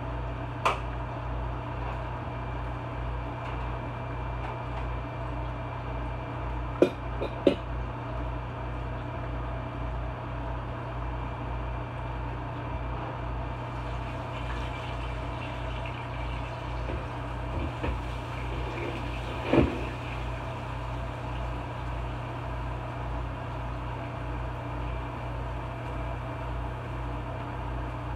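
Steady appliance hum in a kitchen, broken by a few sharp knocks of cookware on an electric stove: two close together about seven seconds in, the loudest, and another near twenty seconds.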